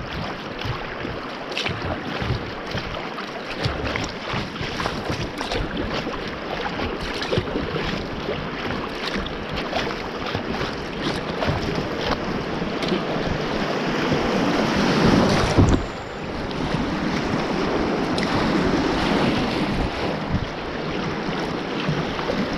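Fast river water rushing and splashing against a kayak's hull as it runs a shallow rapid, with wind buffeting the microphone and many small splashes ticking throughout. The water noise swells for a couple of seconds about two-thirds of the way through, then drops off suddenly.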